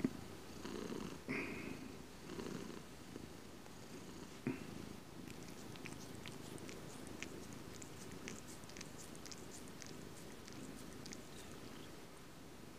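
Domestic cat purring steadily close to the microphone, swelling louder a few times in the first seconds, with a scatter of faint crackling ticks through the middle.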